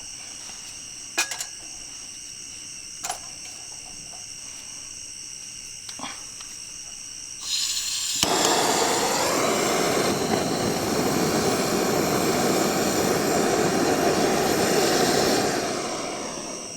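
Crickets chirping steadily in the night with a few light knocks; about seven seconds in, a loud, steady rushing roar comes in, drowns them out, then fades away near the end.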